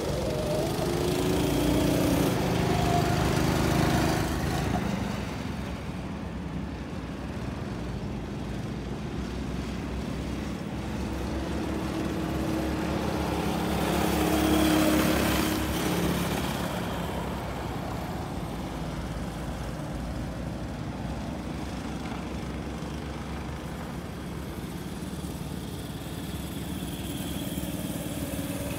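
Small go-kart engines running as karts lap the track. The sound swells as karts pass close by about two to four seconds in and again around fourteen to fifteen seconds in. More distant karts run steadily in between.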